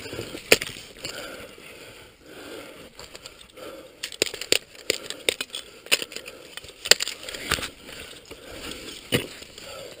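Ice axes swung into frozen waterfall ice: sharp, irregular strikes, several in a row and a second or more apart, as the picks bite in during the climb.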